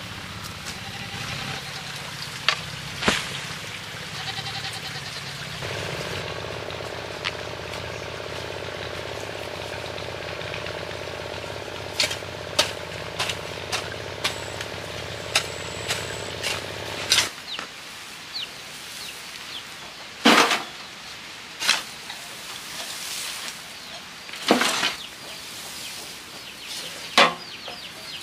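A hoe striking and scraping dry, stony ground in separate sharp strokes a second or more apart, with birds chirping faintly. A steady low drone runs under the first two-thirds and stops suddenly.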